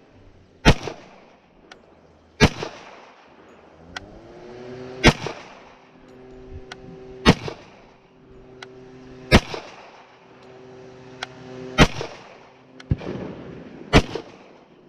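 KRISS Vector .45 ACP carbine firing single shots: seven sharp reports about two seconds apart, each followed by a short echo.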